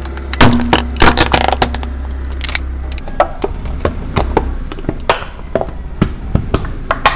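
Car tyre slowly rolling over and crushing hard objects, a plastic toy figure and then a thin metal tray, with a run of sharp cracks and snaps, loudest in two clusters in the first second and a half. A steady low engine hum runs underneath.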